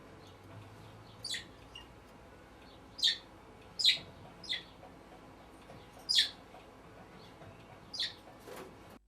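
Pet budgerigar giving short, sharp high chirps, six of them at irregular intervals over about nine seconds.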